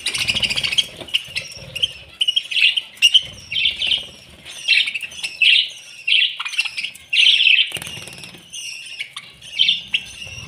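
A flock of budgerigars chirping and chattering nonstop while feeding, with short bursts of wing flapping every few seconds.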